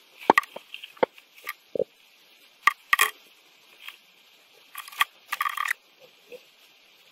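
A hot glue gun and small parts being handled: a string of sharp clicks and taps, some brief scrapes, and a short squeak about two seconds in.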